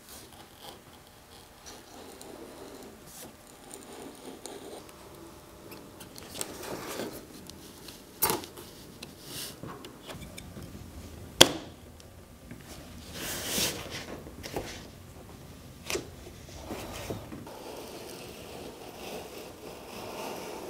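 Old rubber windshield gasket being worked loose and pulled off the glass and cab frame by hand: irregular rubbing and scraping, with a few sharp snaps, the loudest about eleven seconds in.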